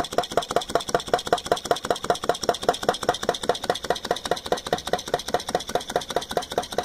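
Scott vacuum (flame-licker) engine running steadily, a sharp click at about seven a second as its sliding shutter opens and closes over the burner flames, over a steady hiss. The new shutter arrangement is working.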